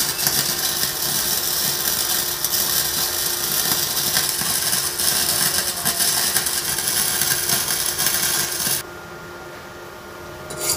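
MIG welding arc on thin 1 mm steel box section, from a Wintech mini welder feeding gasless flux-cored wire: a steady sputtering crackle that cuts off suddenly about nine seconds in when the trigger is released.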